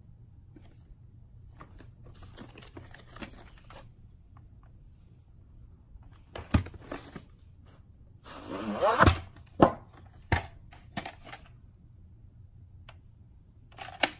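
A VHS cassette and its box being handled: light rustling and taps, then a louder scraping slide a little past halfway as the cassette comes out of the box, followed by several sharp clicks and knocks of the plastic cassette.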